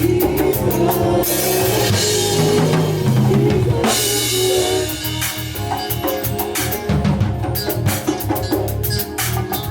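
A live band playing with a full drum kit, bass and other pitched instruments, with a steady beat. Cymbals wash over the band from about one to four seconds in.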